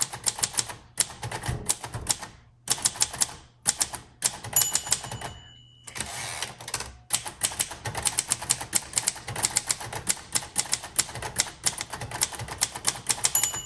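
1956 Royal Quiet Deluxe manual typewriter being typed on in quick runs of key strikes. The margin bell dings about four and a half seconds in, and the carriage is then returned. Typing resumes, and the bell sounds again near the end.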